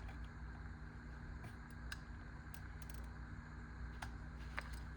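Faint handling noises of a tool and its packaging being picked up and handled: a few light clicks over a steady low hum.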